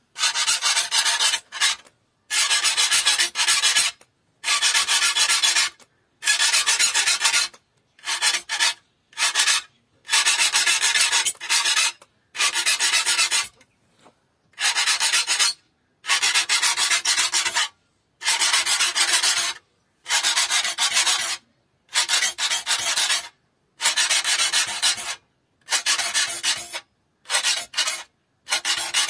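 A steel file rasping across the teeth of a hand saw clamped in wooden jaws, the strokes of saw sharpening. There are about fifteen strokes, most a second or so long, some shorter, with clean pauses between them.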